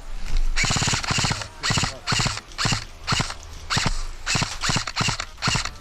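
Running footsteps, about three crunching steps a second, starting about half a second in.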